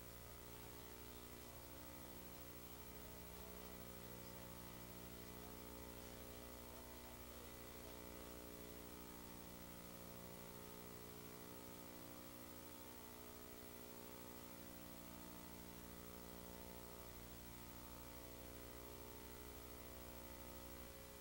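Near silence: a faint, steady electrical hum under a light hiss.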